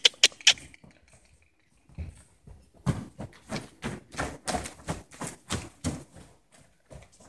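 Hoofbeats of two horses, a paint gelding and a mare, cantering on a dirt floor: irregular thuds about three a second, starting about two seconds in and dying away near the end. A few sharp knocks come right at the start.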